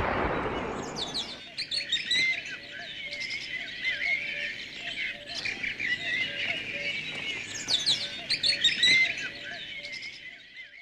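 Many small songbirds chirping and twittering together in a busy chorus, with short rising whistles, over the fading echo of a gunshot in the first second. The birdsong stops abruptly at the end.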